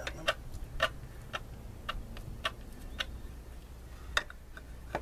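A string of short, sharp clicks, about two a second, with one longer gap near the end, over a low steady hum.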